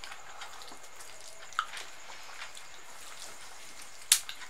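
Fingers mixing soft khichdi and picking at dum aloo on a plate: faint squishy sounds and small clicks, with one sharp click a little after four seconds in.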